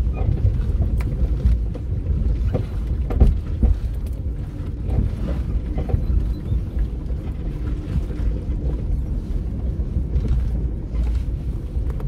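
4WD vehicle driving slowly down a rough bush track: a steady low engine and cabin rumble with scattered knocks and rattles as it goes over bumps.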